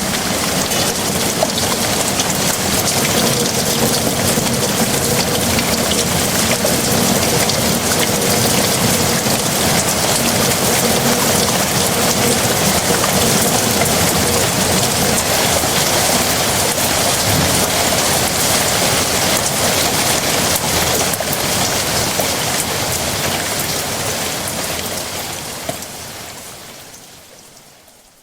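Heavy rain falling steadily in a dense, even hiss, fading out over the last few seconds.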